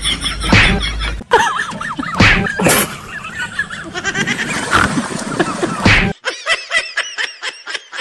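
Human laughter and snickering in quick repeated bursts, with abrupt changes about a second in and again about six seconds in; the last stretch is a fast run of short giggles, about five a second.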